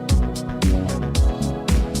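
Background music with a steady beat: an electronic track with a low drum hit about twice a second under sustained pitched notes.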